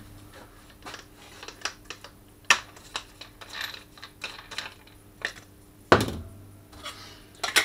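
Scattered light clicks and clinks of a hand-held angle grinder and its abrasive disc being handled and swapped, with a louder knock about six seconds in as the disc is set down on the workbench and a few sharp clicks near the end.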